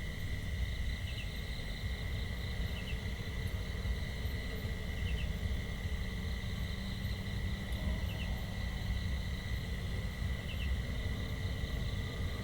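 Countryside ambience: a steady high insect drone over a low rumble, with a small bird giving a short double chirp every couple of seconds.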